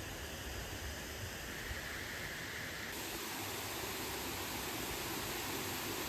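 Steady rushing hiss of water spilling over a small stone-and-concrete weir. About halfway through, the hiss turns abruptly brighter and a little louder.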